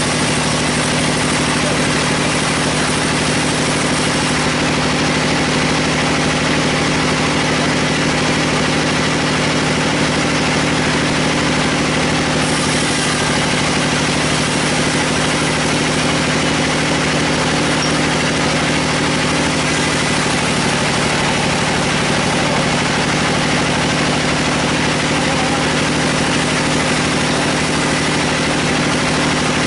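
Band sawmill running steadily, a constant machine hum with no change in pitch or level.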